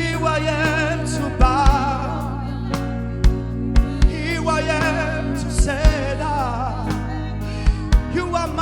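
Live gospel worship music: a voice singing with a wavering vibrato over sustained chords and bass, with low drum beats now and then.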